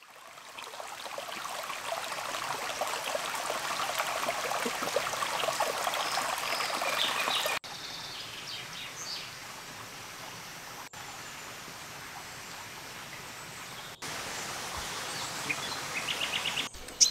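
Running stream water fading in, then quieter stretches of outdoor ambience with small birds chirping now and then. The sound changes abruptly several times as one recording cuts to the next.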